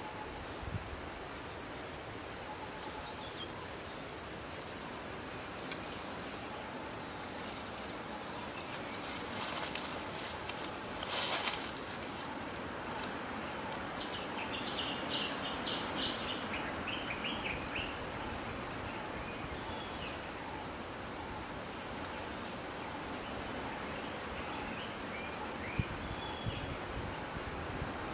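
Outdoor ambience with a steady high-pitched insect drone. About halfway through, a bird calls in a quick run of short chirps, and shortly before that there is a brief noisy rustle.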